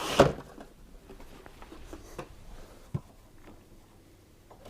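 Screws being undone from a dryer's cabinet: faint scattered clicks and taps of the tool and metal parts, with one sharper knock about three seconds in. A louder rustling noise at the start stops almost at once.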